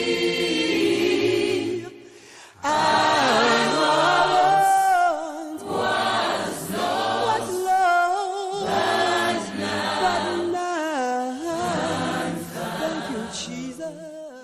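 Unaccompanied choir singing in phrases with short breaks, fading out near the end.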